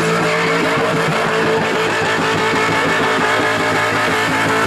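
V8 Holden Commodore engine held at high revs during a burnout, its note steady and even, over a dense hiss of tyre noise.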